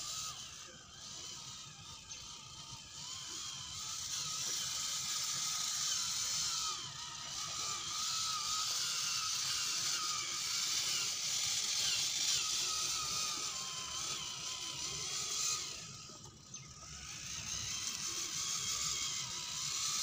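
RC crawler's electric motor and geartrain whining as it crawls over dirt and roots, the pitch wavering up and down with the throttle. The whine drops away for about a second near the end, then picks up again.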